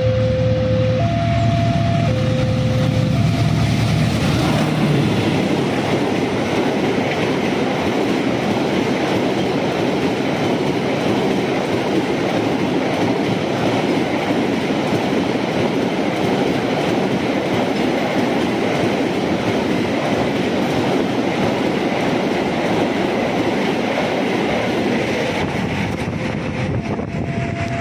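A train passing a level crossing at speed: a heavy locomotive rumble in the first few seconds, then a long steady rush of carriage wheels on the rails. The crossing's two-tone warning bell rings at the start and again near the end.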